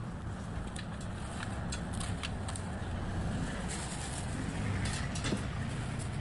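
Steady low rumble of street traffic, with scattered light clicks and rattles of handling at the stall.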